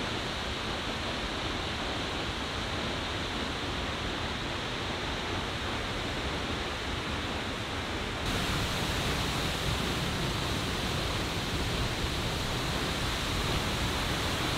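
Steady rush of falling water from Seljalandsfoss waterfall. It gets louder and brighter about eight seconds in.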